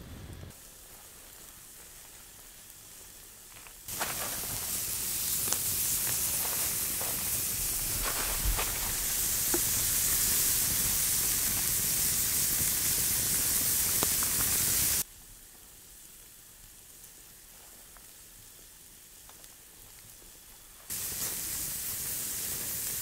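Steak sizzling on an iron grill grate over a wood campfire, a steady hissing with scattered pops from the fire. The sizzle starts abruptly about four seconds in and drops away suddenly about two-thirds of the way through, leaving a quieter hiss. It comes back loud near the end.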